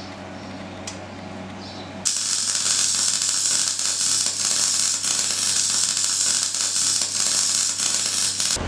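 Low steady workshop hum, then about two seconds in a MIG welding arc strikes: a loud, steady crackling hiss that stops suddenly just before the end.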